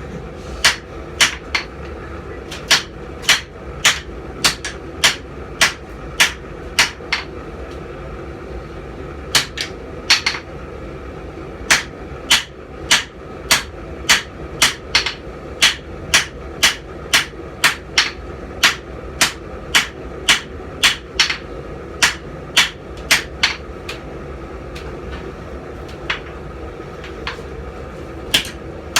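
Hammer blows on hot steel over an anvil, about two strikes a second with a few short pauses, as a steel bic horn is drawn out. A steady low hum runs underneath.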